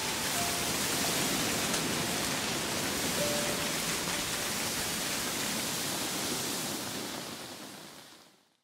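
Steady heavy rain, fading away near the end.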